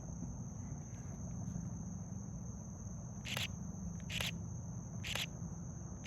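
Night insects, crickets, trilling steadily over a low rumbling background hiss. A louder chirp sounds about once a second, four times, in the second half.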